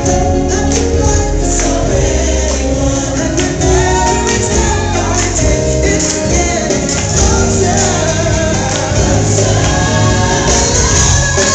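Gospel music: a choir singing over a full band, with a steady beat and tambourine.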